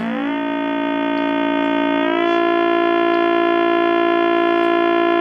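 Make Noise Spectraphon sounding a sustained synthesizer drone built from a stack of harmonics, its controls being turned to dial in a spectrum for array creation. The upper harmonics glide upward at the start and again about two seconds in, then hold steady.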